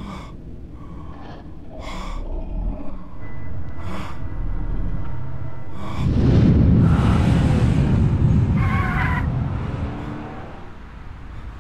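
Several short, sharp gasps of breath over a low rumble. About six seconds in, a sudden loud, low, rumbling jump-scare sound effect with a hiss over it, fading out over the last few seconds.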